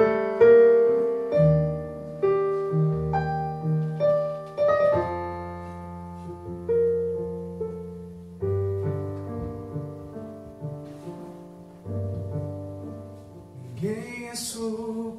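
Casio digital keyboard on a piano sound playing the song's introduction: struck chords over low bass notes that ring and fade, about one a second at first. A man's singing voice comes in near the end.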